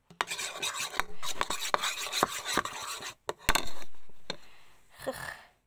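Close, loud rubbing and scraping with many scattered clicks. About three and a half seconds in comes a sharp knock that fades over about a second, then a shorter scrape near the end.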